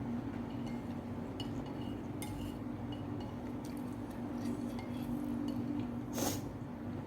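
Light clinks of utensils against a bowl while eating noodles, with a louder clink or clatter about six seconds in, over a steady low hum.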